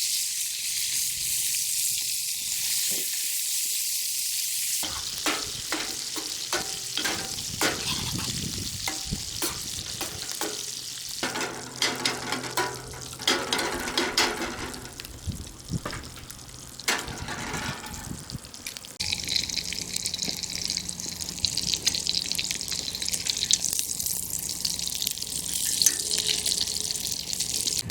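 Scrambled eggs sizzling in a cast iron pan, with a utensil scraping and stirring them through the middle stretch. The sizzle shifts abruptly a few times.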